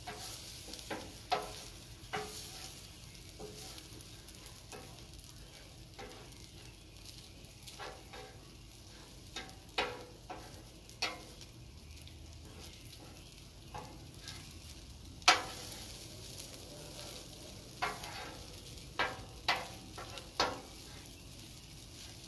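Eggs and rice sizzling on a hot Cuisinart 360 flat-top griddle, with metal spatulas scraping and clacking against the steel surface at irregular intervals; the loudest clack comes about fifteen seconds in.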